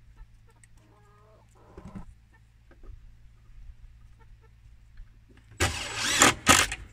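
A few faint hen clucks, then near the end a cordless drill whirring loudly in two short runs, its pitch wavering under load as it drives a metal screw hook into the wooden underside of the coop.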